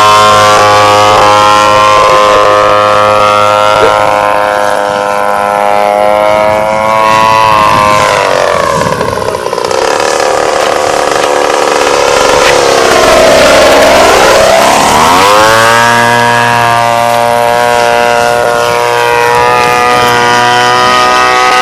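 Radio-controlled Extra aerobatic model plane's motor and propeller running at a steady pitch. About eight seconds in the pitch sweeps down, then climbs back to the same pitch around fifteen seconds in, as with throttle eased off and opened again.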